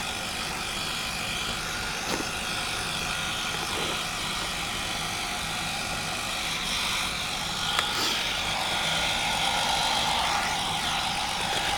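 Handheld hair dryer blowing steadily, with a couple of faint clicks about two and eight seconds in.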